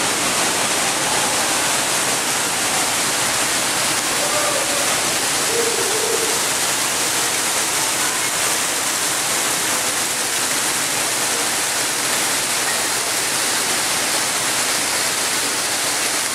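Waterfall pouring into a pool: a steady rushing splash of falling water.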